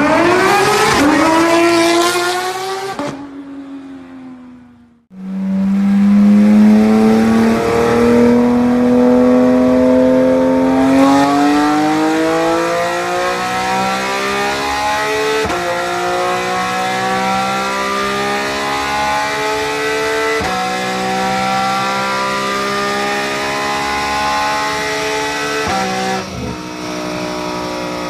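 Porsche 911 GT3's 4.0-litre naturally aspirated flat-six at high revs. First a car accelerates hard along a street, its note climbing quickly and then fading away. Then the GT3 is run up on a chassis dyno: the pitch rises for several seconds, then drops abruptly and climbs again three times as it shifts up.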